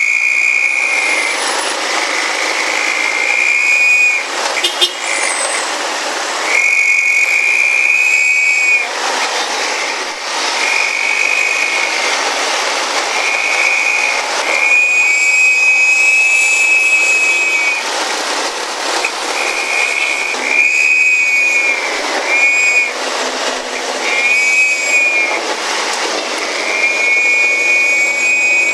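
Whistle-modified exhaust of an angkot minibus: a whistle built into the muffler gives a shrill, steady whistle in about ten separate blasts of one to three seconds each, over road and wind noise.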